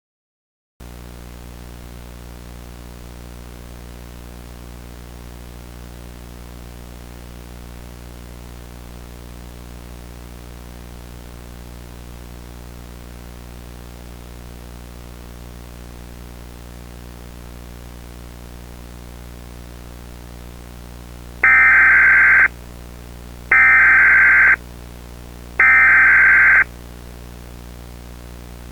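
A steady low electronic hum starts about a second in. About 21 seconds in, three loud one-second bursts of warbling Emergency Alert System SAME header data tones play a second apart: the coded header that opens an alert broadcast.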